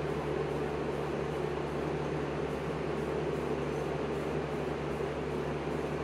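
Steady whir of an electric fan or ventilation blower running with a low mains hum.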